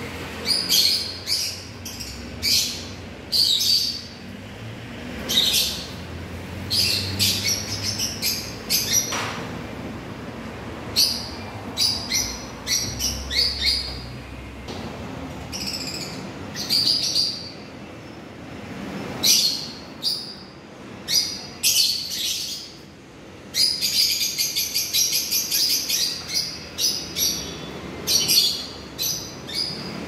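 Caged lovebirds making shrill, high chirps in short clusters with brief pauses between, and a quick run of rapid chattering calls about three-quarters of the way through.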